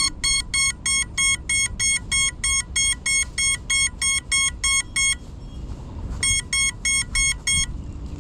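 A crashed FPV quadcopter's lost-model beeper sounding rapid, high, piercing beeps, about three a second, with one gap of about a second and a shorter one later on: the locator signal that helps the pilot find the downed drone.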